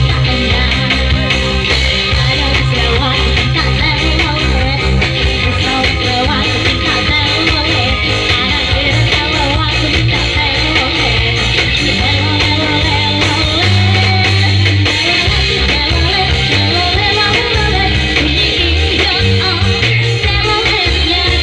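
Live band music playing loud and continuous, with a strong, steady bass line under the melody.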